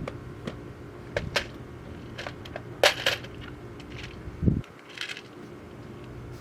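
A series of sharp metallic clicks and clinks from screws and hand tools being handled during bodywork, with one duller knock about two thirds of the way through, over a faint steady hum.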